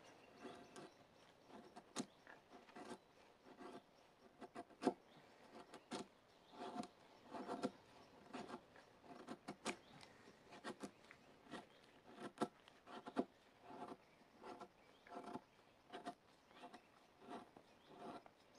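Knife blade shaving thin curls down a wooden stick to make a feather stick: a steady series of short, faint scraping strokes, roughly one or two a second.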